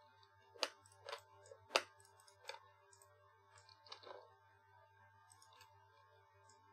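A handful of sharp clicks from a computer mouse and keyboard, about five in the first four seconds, over a faint steady hum.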